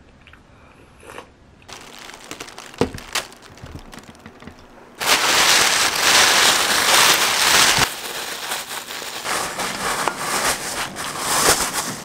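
Thin black plastic bag rustling and crinkling as hands rummage in it, loudest for about three seconds in the middle.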